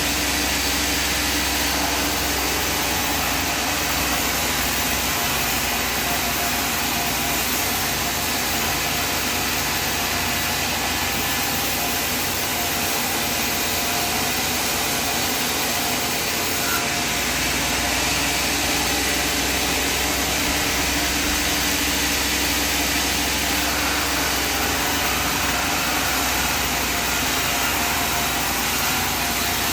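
Sawmill machinery running steadily: an even mechanical drone with hiss that holds at one level throughout.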